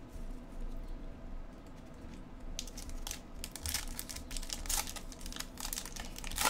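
Baseball card pack wrapper crinkling and tearing as the pack is torn open by hand: a quick run of sharp rustles starting about two and a half seconds in.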